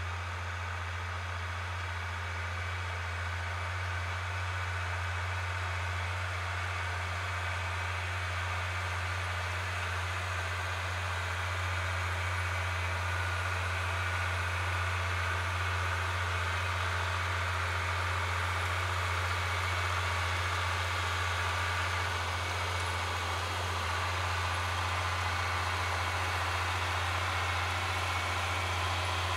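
Diesel farm tractor engine running steadily as it pulls field equipment, growing a little louder over the first dozen seconds.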